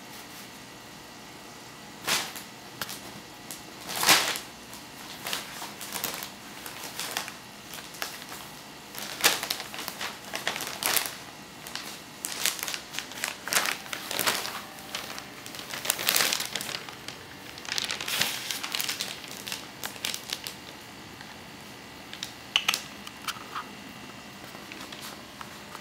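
Wrapping paper crinkling and rustling in irregular bursts as a cat burrows into it and paws at it. The bursts start about two seconds in and die down near the end, with a last couple of brief crackles.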